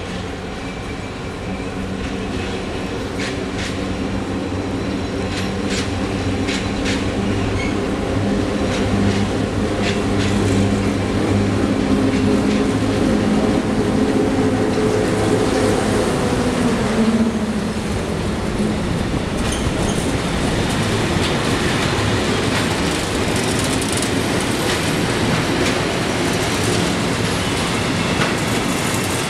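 EU07 electric locomotive approaching and passing with a hum of several steady pitches that drops in pitch as it goes by, about 17 seconds in. Then the tank wagons of its freight train roll past with clattering wheels over the rail joints.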